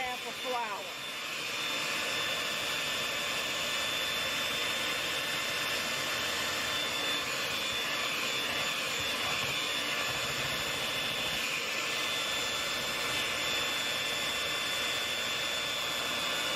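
Electric hand mixer running steadily with a steady high whine, its twin beaters churning thick mashed sweet potato and butter filling.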